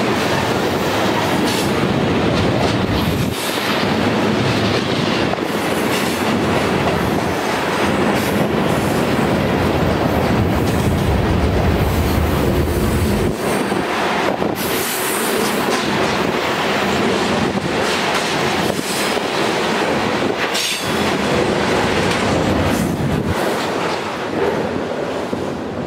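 Freight cars rolling past, their steel wheels clattering over the rails with some wheel squeal on the curve. The rumble thins out near the end as the rear of the train goes by.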